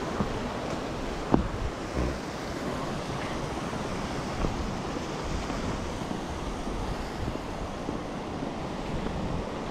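Steady rushing of flowing creek water, with a few light knocks, one a little over a second in.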